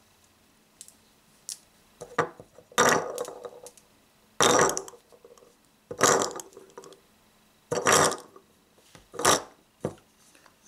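Steel balls dropped one at a time into a pistol speedloader, each landing with a hard clack and a short rattle, about every one and a half seconds.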